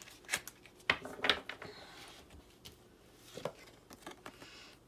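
Tarot cards being handled on a wooden table: a few light clicks and slides as a card is drawn and picked up, the loudest about a second in.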